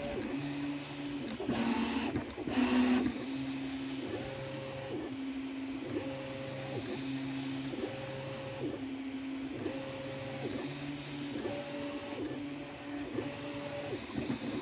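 Prusa Mini 3D printer printing. Its stepper motors hum in steady tones that switch between a higher and a lower pitch about once a second as the print head moves back and forth. There are two short, louder and rougher stretches about two to three seconds in.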